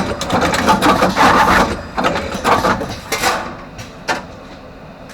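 Artos CR22 automatic wire-crimping machine running and crimping terminals onto both wire ends: a dense mechanical clatter of clicks and knocks that thins out through the second half, with two sharp clacks near the end.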